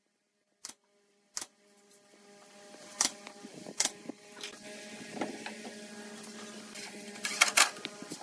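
Two sharp shots from a pneumatic nail gun driving nails into pine boards, under a second apart, then scattered knocks of wood and tools being handled over a steady low hum, with a quick cluster of clicks near the end.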